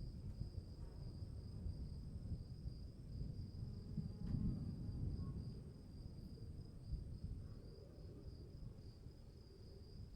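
Crickets trilling steadily in one high, unbroken tone, over a low, uneven background rumble that swells briefly a few seconds in.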